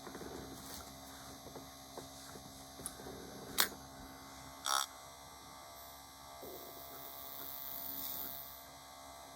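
Small electric paint stirrer running with a low steady hum while it mixes a bottle of thinned paint. A sharp click comes about three and a half seconds in, and a short burst of noise about a second later.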